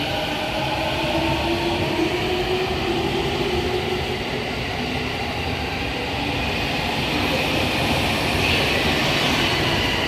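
JR 209-500 series electric train accelerating away, its VVVF inverter and traction motors whining in several tones that climb slowly in pitch, over steady wheel and running noise.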